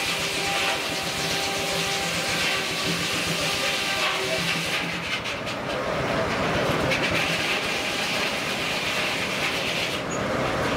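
Steam engine running a sawmill, with a steady hiss of steam over mechanical clatter; the sound changes character about five seconds in and again near the end.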